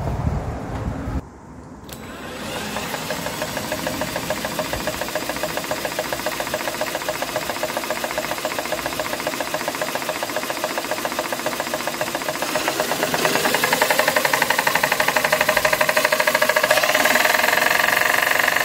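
A 16cc RETROL model diesel stationary engine with mechanical injection and compression ignition, running on pump diesel with a rapid, even beat. It dips briefly about a second in, then settles into a steady run that grows louder about two-thirds of the way through.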